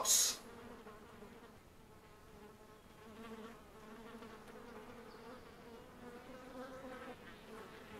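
Flies buzzing around a corpse: a faint, steady drone that wavers slightly in pitch.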